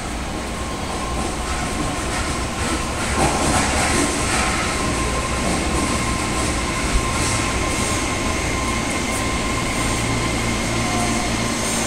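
Kobe Municipal Subway 6000-series train pulling slowly into an underground station platform, growing gradually louder as it nears. A steady high whine runs under the rumble of its wheels, with a single sharp clack about seven seconds in.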